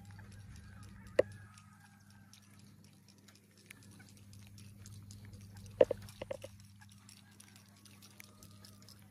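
A few short honking animal calls, one about a second in and a quick run of three or four near the middle, over a faint steady low hum.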